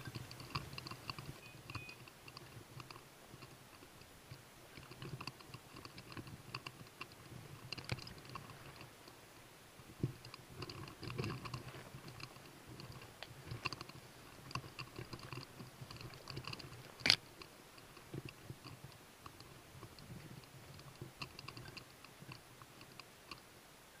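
Crunching and rustling of movement through dry undergrowth, with irregular faint metallic jingling and one sharp snap about two-thirds of the way through.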